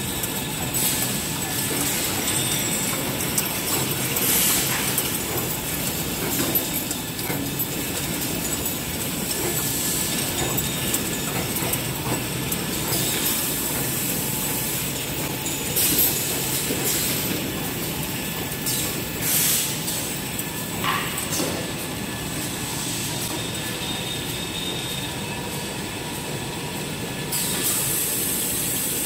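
XY-503IZ individual toilet and kitchen roll wrapping machine running at speed, a steady mechanical rattle and clatter of its conveyors and wrapping mechanism, with short hisses every few seconds.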